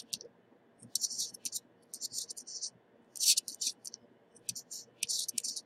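Small metal hand tools scratching and clicking at a board under repair, in short irregular high-pitched bursts with quiet gaps between.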